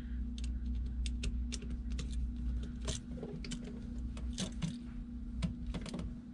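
Phillips screwdriver clicking and scraping on a receptacle's terminal screws as they are snugged down: irregular small clicks, over a steady low hum.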